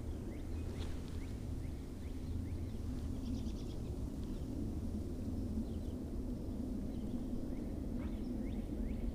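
Faint songbird chirps scattered over a steady low outdoor rumble, with a short trill a little over three seconds in.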